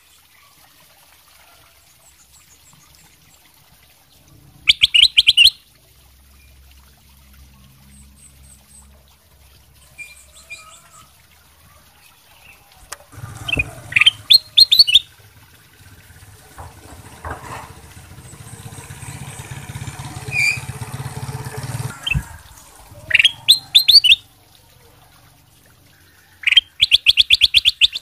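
Ruby-throated bulbul (kutilang emas) singing short bursts of rapid, sharp notes, four times with long pauses between. A low rumbling noise builds in the middle and cuts off suddenly just before the third burst.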